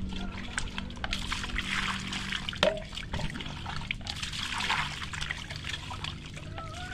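Water poured from a tin can into a plastic basin and splashing as eels are rinsed by hand, with scattered small clicks and one sharp knock about two and a half seconds in.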